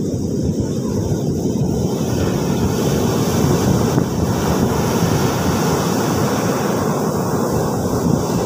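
Ocean surf breaking and washing up a sandy beach, a steady rush that swells about three or four seconds in, under a heavy low rumble of wind buffeting the microphone.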